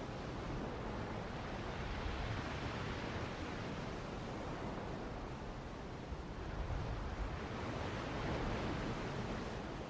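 Soft, steady rush of ocean surf, swelling and easing slowly.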